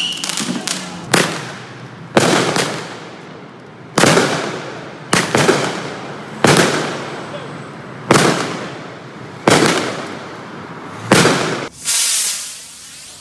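Consumer fireworks going off in the street: about nine sharp bangs, roughly one every second and a half, each echoing off the surrounding buildings and trailing away. Near the end comes a hissing spray.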